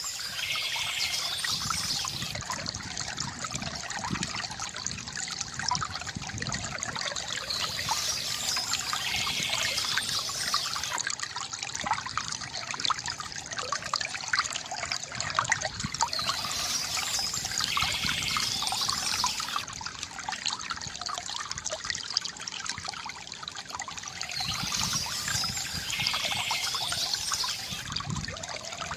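Water trickling and gurgling steadily from a bamboo fountain. A brighter, hissier splash swells up about every eight or nine seconds.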